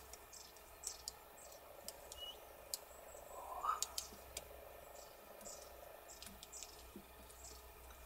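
Great spotted woodpecker pecking at the bark of a dead trunk: faint, irregular taps and clicks, a few sharper ones around the middle, with faint high chirps of small birds in between.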